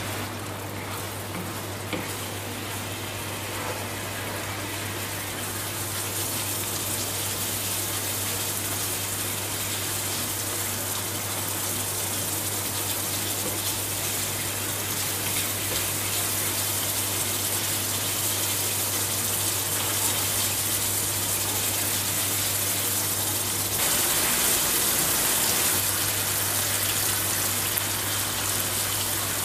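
Coconut milk and curry paste sizzling and bubbling in a pan while being stirred, over a steady low hum. About 24 seconds in, liquid is poured into the pan and the sound gets louder for a few seconds.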